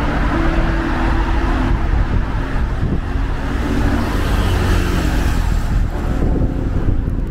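Road traffic: cars passing along a multi-lane city boulevard, a steady wash of tyre and engine noise.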